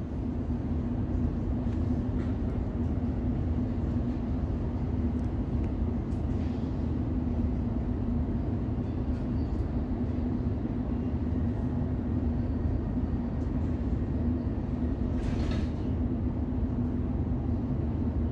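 Steady rumble and low hum of a suburban electric train, heard from inside the carriage, with a brief hiss about fifteen seconds in.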